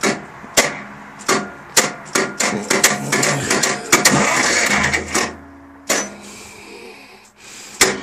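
Lister diesel engine being cranked by its electric starter without firing, a sharp knock coming about every half second; the cranking stops about five seconds in, leaving a low hum, with one more knock near the end. The engine is struggling to start, which the owner puts down to bad battery connections.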